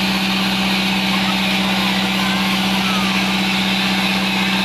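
Steady engine drone with a constant hiss from the blast hose cleaning the oil pipeline's surface, running unchanged throughout.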